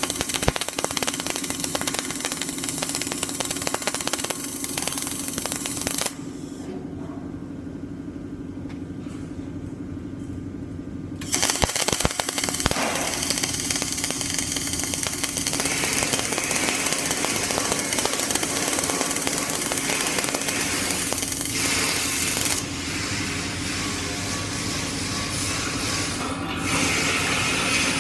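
Flux-cored arc welding: the arc's dense crackling sizzle, which stops for about five seconds a quarter of the way in and then strikes again, over a steady low hum.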